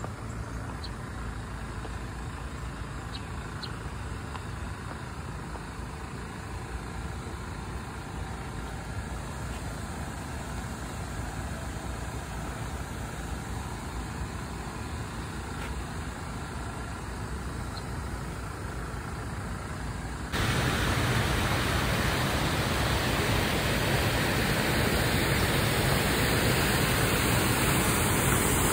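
Steady road and engine noise of a car driving, turning abruptly louder about twenty seconds in.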